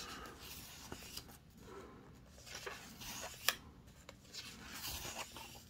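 Pages of a large hardcover book being turned and smoothed by hand: soft paper rustling and sliding, with one sharp tick about three and a half seconds in.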